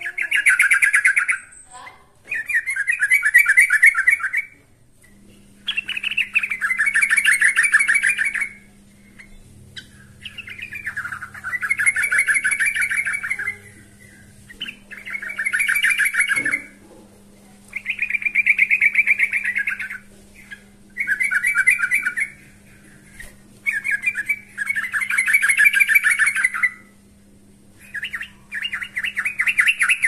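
Yellow-vented bulbul (trucukan) singing: bubbly, rapidly warbled phrases about two seconds long, repeated with short pauses, the loud, frequent song used to call out a rival. A faint steady hum comes in about five seconds in.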